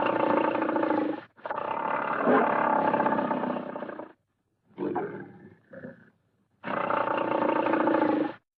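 Tiger roaring: four roars, each starting and stopping abruptly with a silent gap between them. The two middle roars are the longest, and a shorter one comes about halfway through.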